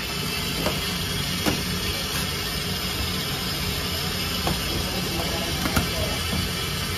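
A steel bench scraper taps sharply on a metal work table a few times as dough is chopped into pieces. Under it runs a steady hiss and hum of bakery machinery.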